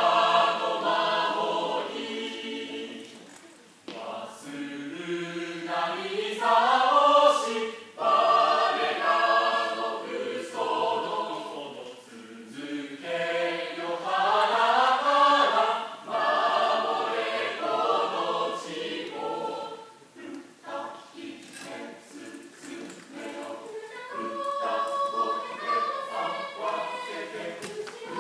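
Mixed choir of men's and women's voices singing a hymn in parts, unaccompanied. It goes in phrases a few seconds long with short breaks between, and in two phrases the lines climb upward.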